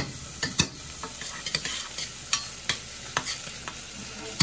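Diced onions sizzling in butter in a stainless steel saucepan, with a steady frying hiss. A utensil stirring them clinks sharply against the pan about a dozen times at irregular intervals.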